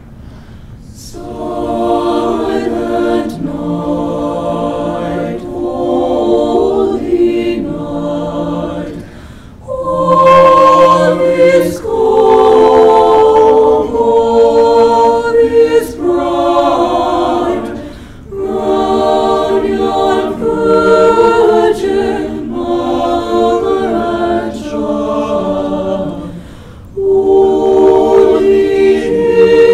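Mixed high school choir of boys' and girls' voices singing a cappella in several parts, coming in about a second in and moving through phrases with short breaths between them.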